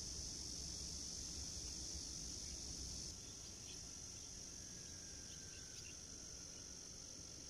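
Steady, high-pitched drone of an insect chorus, with a faint low rumble beneath it. The drone drops a little in level about three seconds in.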